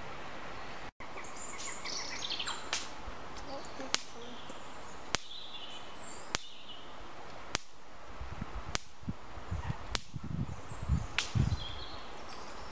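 Woodland ambience with faint bird chirps and a sharp click repeating about every second and a quarter. Low bumps and rustling come in during the second half.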